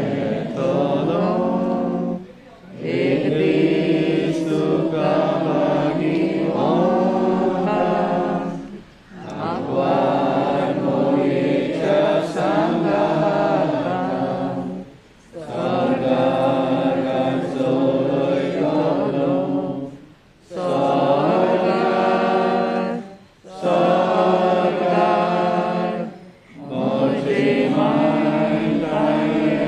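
A crowd of mourners singing a prayer together, in long phrases broken by short pauses for breath every few seconds.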